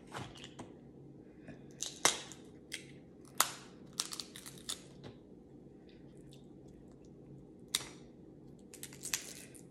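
Boiled shellfish shells being cracked and peeled apart by hand: a string of sharp cracks and crackles, the loudest about two seconds in and at three and a half seconds, with a cluster soon after, another crack near eight seconds, and a last flurry near the end.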